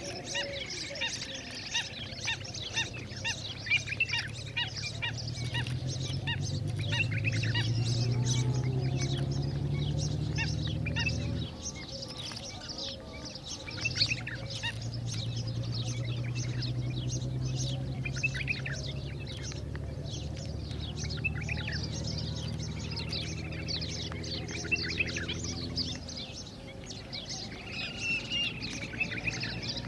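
Many small birds chirping constantly in a busy outdoor chorus. A low steady drone comes in twice and is louder than the birds. The first time it cuts off suddenly near the middle.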